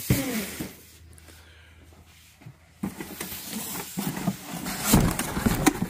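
Cardboard box being handled and shifted on a table, with flaps rustling and scraping sounds starting about three seconds in, and a sharp knock near the end.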